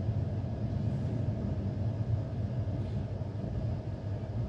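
Passenger train running along the track, a steady low rolling noise of the coach's wheels on the rails heard from inside the coach.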